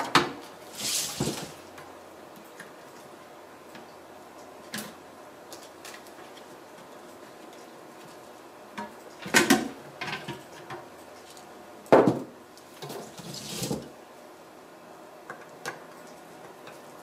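Hard plastic water-filter parts being handled on a table: scattered clicks and knocks as a clip bracket is fitted to the filter's mounting plate, with brief rustles. The loudest knocks come about nine and twelve seconds in.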